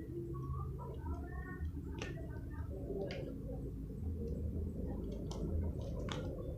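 A few sharp light clicks, about 2, 3, 5 and 6 seconds in, over a low steady hum, with faint voices in the background.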